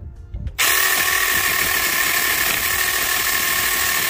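Saker battery-powered mini chainsaw switched on about half a second in, its motor and chain running at a steady pitch as it cuts into the thin stem of a small oak sapling.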